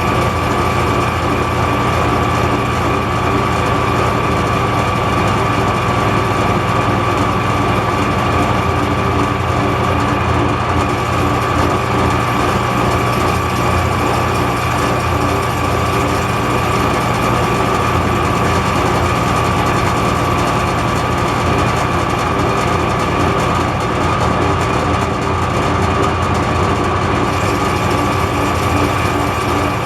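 Metal lathe running steadily while taking a light finishing cut on the outside diameter of a shaft, a constant machine hum with a steady high whine over it.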